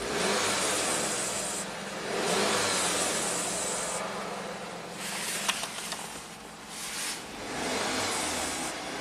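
Turbocharged four-cylinder engine of a 2015 VW Golf running, in limp mode with its high-pressure fuel pump's control valve unplugged. Its sound swells and eases several times.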